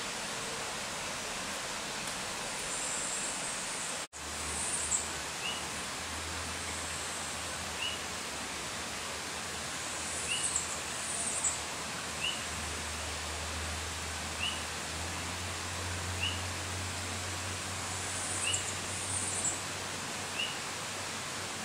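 Steady hiss of forest ambience with a short high chirp from a small animal repeating about every two seconds and a few higher, shriller chirps now and then. The sound cuts out for an instant about four seconds in, after which a low hum runs underneath.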